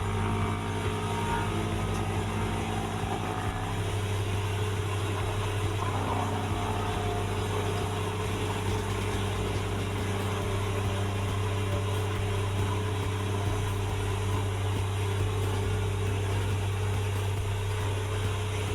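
A motor vehicle's engine running steadily with tyre and road noise: an unbroken low drone.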